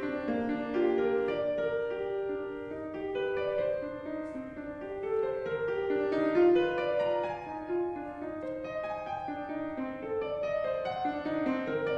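Grand piano played at a quick pace: a continuous stream of notes, mostly in the middle register.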